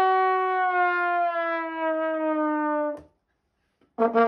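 A brass sound effect: one long held note that slides slowly down in pitch and cuts off abruptly. After a second of silence, a new, lower brass note starts near the end.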